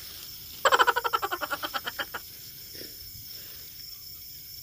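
A frog calling: a quick run of about fifteen croaks, roughly ten a second, that fades away over a second and a half. A steady high insect drone sounds underneath.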